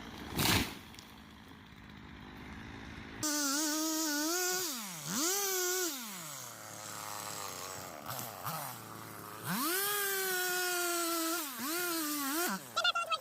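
Two-stroke chainsaw engine revved in several throttle bursts, its pitch rising sharply and falling back toward idle between them.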